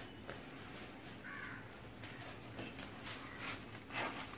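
Faint handling sounds, a plastic bottle and cloth rustling and ticking, as the bottle is held over a lit gas-stove burner to heat it onto the broom's bundle of sticks. One short call sounds in the background about a second in.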